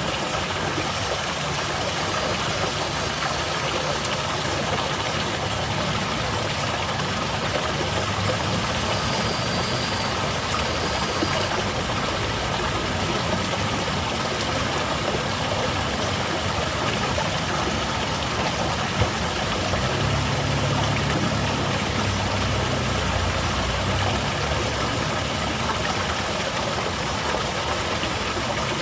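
Water of a small garden waterfall splashing and rushing in a steady, even roar, with a low rumble swelling a little about two-thirds of the way through.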